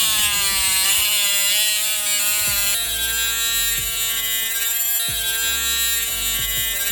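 A small electric power tool buzzing as it cuts through the steel shaft of a screwdriver, its pitch shifting a few times under load. Background music plays under it.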